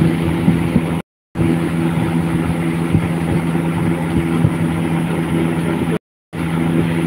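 Steady low motor hum with several fixed tones over a hiss, as from an electric fan heater running. The sound cuts out completely for a moment twice, about a second in and again about six seconds in.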